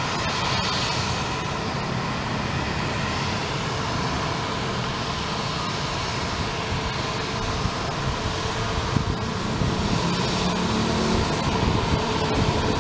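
Airbus A320neo jet engines running at taxi power: a steady rushing roar with a faint whine, getting slightly louder in the second half.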